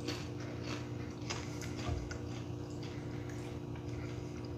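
Quiet chewing of a water cracker: small crunches and mouth clicks, busiest in the first couple of seconds, over a steady low electrical hum.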